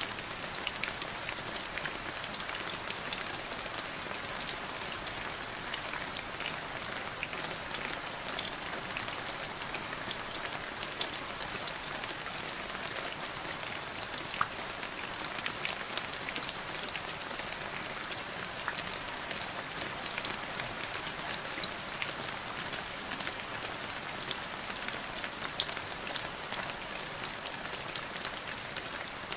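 Steady rain: a dense, even hiss with many small drops pattering.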